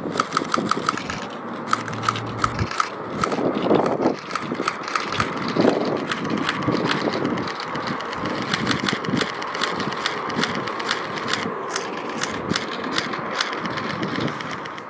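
Boeing 787-9 Dreamliner with General Electric GEnx-1B turbofans on its landing approach, a steady jet hiss with a continual crackle of sharp clicks over it.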